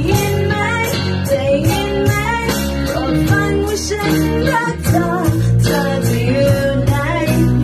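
A small band playing a song live: digital piano, electric bass and an electronic drum kit keeping a steady beat, with a voice singing the melody over them.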